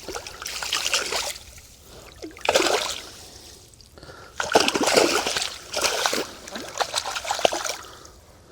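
A mirror carp splashing in the water in several separate bursts as it is released, kicking at the surface.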